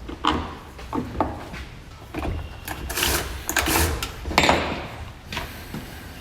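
Irregular clinks, knocks and scrapes of metal chainsaw parts being handled and fitted back together by hand: the bar, chain and side cover going back on. The busiest run comes about halfway through, over a low steady hum.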